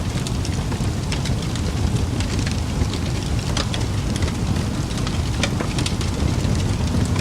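Fireplace crackling: a steady low rush of burning with irregular sharp pops and crackles scattered through it.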